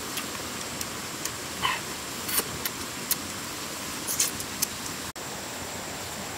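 A steady hiss of flowing river water with a thin, steady high-pitched whine over it, and a scatter of small clicks and smacks from two people eating grilled fish by hand. There is a brief dropout about five seconds in.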